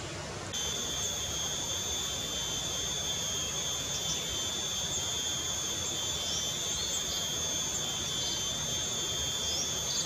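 An insect's steady, high-pitched whine that starts abruptly about half a second in and holds one pitch, with a few faint short chirps of small birds over it.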